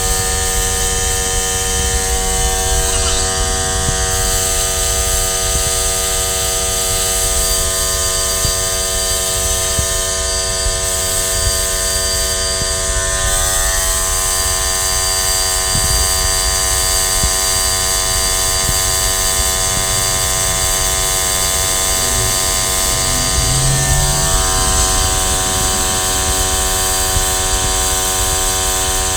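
A small electric motor runs steadily with a buzzing whine, the kind a power sander or similar workshop tool makes. Its pitch shifts slightly about halfway through and again near the end.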